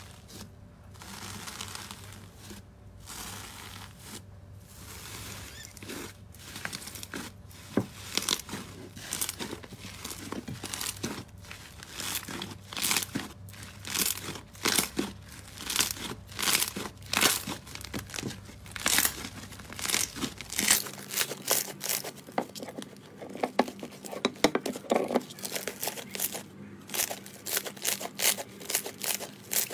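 Metallic foil wrapped over slime crinkling under pressing fingers, then slime squeezed and kneaded by hand, giving many sharp clicking pops as air pockets burst.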